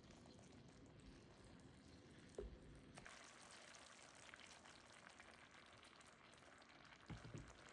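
Faint sizzling of chicken cutlets simmering in a lemon-caper butter sauce in a skillet, with a soft knock about two and a half seconds in and a couple more near the end.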